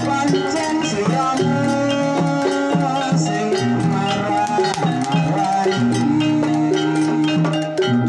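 Javanese gamelan ensemble playing: bronze saron keys and bonang kettle gongs struck with mallets, a continuous stream of ringing metal notes.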